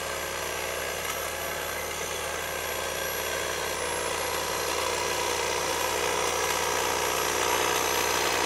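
Oleo-Mac electric hedge trimmer running steadily, its motor driving the reciprocating blades as they cut through a hedge.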